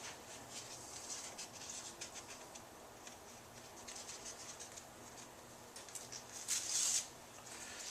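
Drywall knife scraping and spreading joint compound on a wall: faint scratchy rubbing strokes with small ticks, and one louder scrape about six and a half seconds in.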